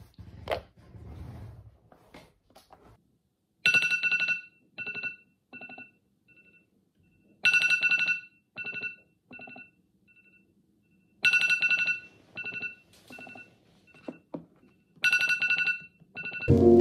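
Phone wake-up alarm ringing: a short chiming melody of echoing notes that repeats about every four seconds, four times in all.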